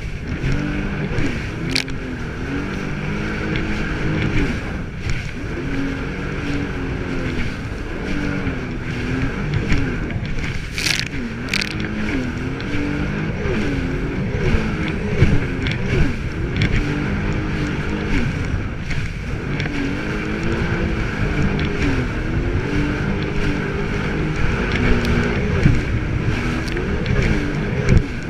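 Jet ski engine running under way, its pitch rising and falling as the throttle changes, over a steady rush of water and wind. Two sharp hits come about eleven seconds in.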